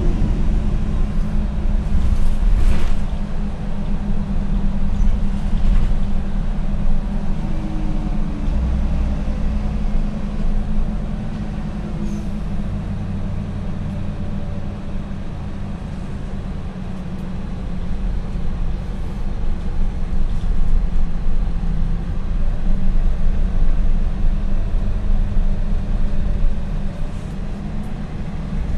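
A MAN NL243 CNG city bus driving, heard from inside the passenger cabin: a steady low rumble from the gas engine and drivetrain that swells and eases with the bus's speed. A faint whine rises and falls along with it.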